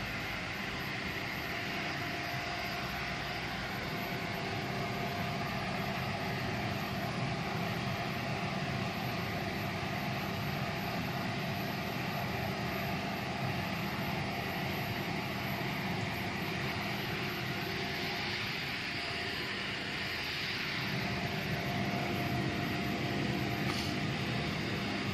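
UV curing machine on a cabinet-door painting line running: a steady, constant machine hum over an even rushing noise from its conveyor and lamp section.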